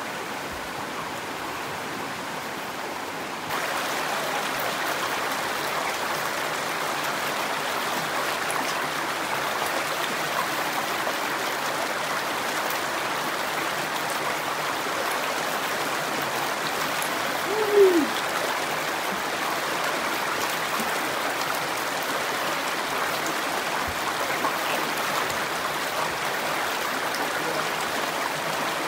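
Mountain stream rushing over bare rock slabs, a steady wash of water noise that turns louder and brighter about three and a half seconds in. Near the middle, one short sound drops in pitch.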